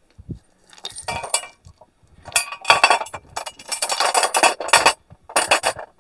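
Steel bolts, nuts and washers for a disc plough's hubs clinking and rattling as they are shaken out of a bag onto a metal plate: a short clatter about a second in, then a dense run of clinks through the middle, and a last burst near the end.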